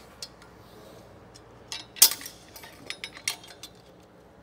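Steel clinking and clicking as snap ring pliers and a screwdriver work a snap ring into its groove on a transmission clutch drum held down in a press. A cluster of sharp clinks comes between about one and a half and three and a half seconds in, the loudest near two seconds.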